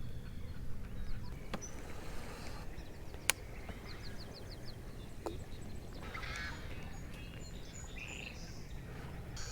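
Birds chirping and calling in short trills and calls over a steady low rumble, with a single sharp click about three seconds in.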